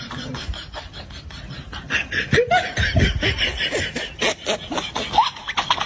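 A person laughing in quick breathy bursts, loudest from about two seconds in.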